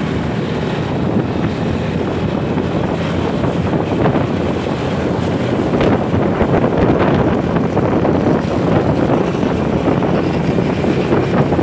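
Steady rush of wind buffeting the microphone on a moving motorbike, mixed with the engine and road noise of motorbikes and scooters in traffic.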